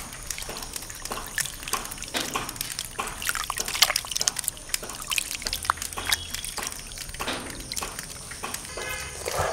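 Hands swishing and rinsing pumpkin stems and leaves in a plastic basin of water: irregular splashes and drips.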